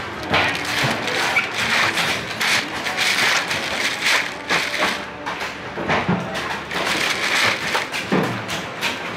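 Busy market clatter: a dense run of irregular knocks and clacks over a steady background din.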